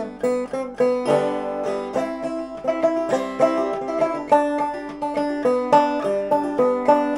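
Five-string banjo played solo in clawhammer style with drop thumb, picking out a melody as a steady, rhythmic stream of plucked notes.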